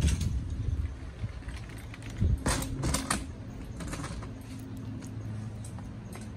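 Amazon parrots pecking and crunching food in a coconut-shell bowl, giving sharp beak clicks and crackles. The clicks bunch together about two to three seconds in, over a steady low hum.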